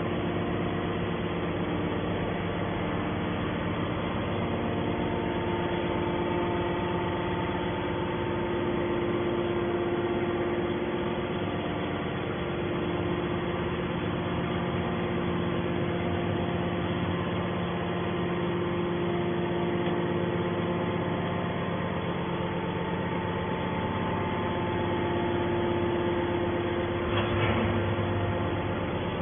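Hydraulic can baler's motor and pump running with a steady drone and several held tones, with a short clatter near the end.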